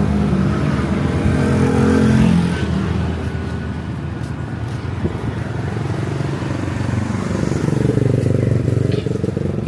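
Street traffic with motor vehicle engines passing close by: one engine loud in the first two seconds or so, then another swelling and passing near the end, its pitch dipping and rising, over steady traffic noise.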